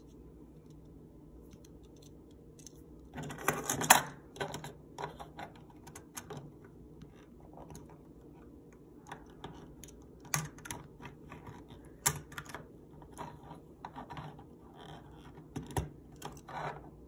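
Plastic razor handling: a short burst of crinkling about three seconds in, then scattered sharp clicks and small rattles as a cartridge razor handle is pressed onto the blades in their plastic cartridge holder.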